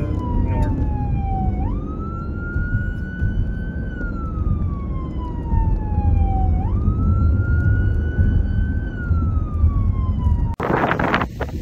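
A siren wailing, its pitch jumping up quickly and then sliding slowly down, about once every five seconds, over a steady low rumble of wind. About ten and a half seconds in it cuts off abruptly into a louder burst of noise.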